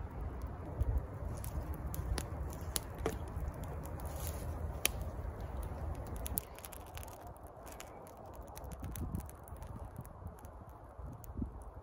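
Wood campfire crackling with scattered sharp pops. A low rumble under the first half stops suddenly about six seconds in, and the fire carries on crackling more quietly.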